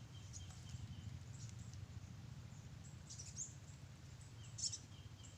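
Faint outdoor ambience: a steady low rumble with two short high chirps, from a bird or insect, and a thin faint high tone near the start and the end.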